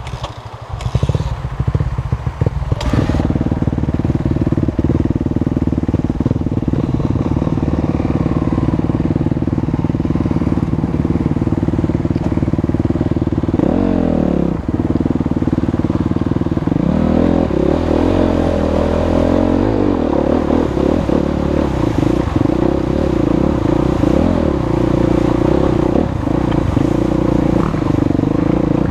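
Suzuki dirt bike's engine running under the rider as it climbs over rocks and along a shallow river, its pitch swinging up and down with throttle changes about halfway through.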